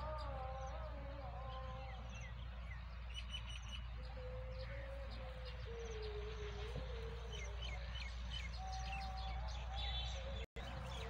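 Small birds chirping in short scattered notes over a steady low hum, with a faint wavering drawn-out tone beneath them. The sound cuts out for a moment near the end.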